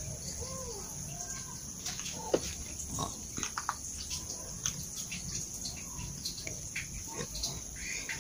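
Kittens eating, with irregular small clicks of chewing and smacking on their food.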